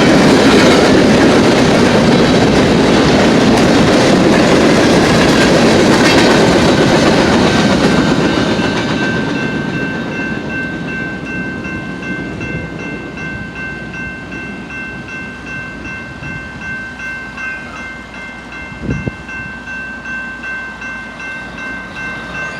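Freight train of empty grain hopper cars rolling past, the wheels clattering over the rail joints; the rumble fades from about eight seconds in as the cars draw away. A steady high whine holds from about six seconds on, and there is a single thump near the end.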